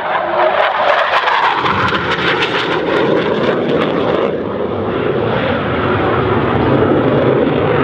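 BAE Hawk 127 jet trainer's single Rolls-Royce Turbomeca Adour turbofan roaring during a display pass. The roar swells about a second and a half in, crackles for a couple of seconds, then holds steady.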